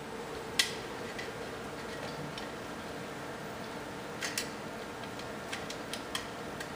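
Sharp metallic clicks from a long metal file bar being handled: one loud click about half a second in, then a cluster of lighter clicks from about four seconds on, over a steady background hum.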